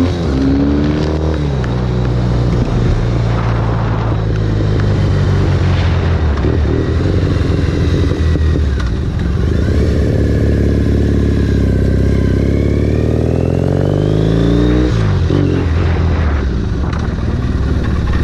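Motorcycle engine running under way. Its pitch drops about a second in, holds steady, climbs gradually through the middle, then drops again near the end as the bike slows.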